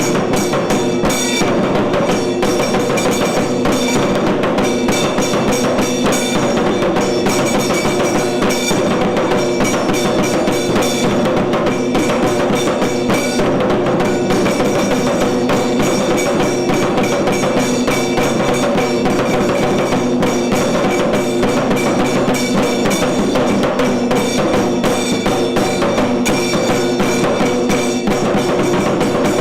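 Tiru Kailaya Vadyam ensemble playing: dense, fast drumming over several held steady tones.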